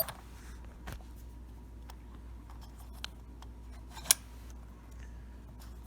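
Old Yale deadbolt being worked by hand: a few sharp metallic clicks and clacks as the lock turns and the bolt moves, the loudest about four seconds in.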